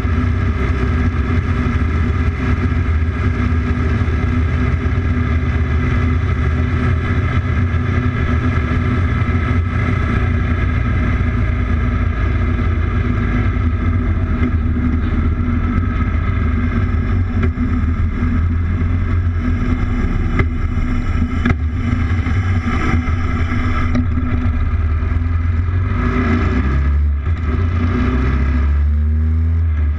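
Motorcycle engine running steadily at cruising speed on the road, with wind rush. Near the end the engine note shifts in pitch a couple of times.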